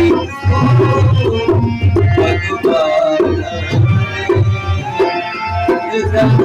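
Dholak, a two-headed barrel drum, played by hand in a steady rhythm of deep strokes, with a melodic line over it.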